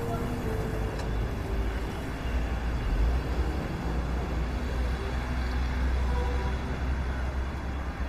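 A large SUV's engine runs as it drives in slowly: a low rumble that swells in the middle, over steady street noise. A few soft musical notes fade out just at the start.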